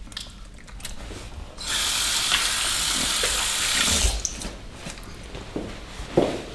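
Washbasin tap running in a hiss for about two and a half seconds, turned on abruptly near two seconds in and shut off about four seconds in, then a few light knocks.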